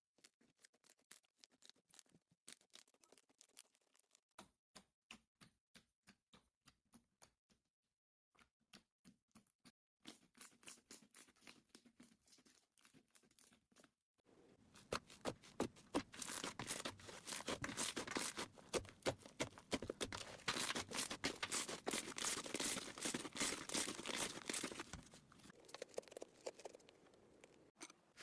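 Slime being handled, giving sharp crackling clicks and pops: sparse and soft at first, then a dense, louder crackle from about halfway through.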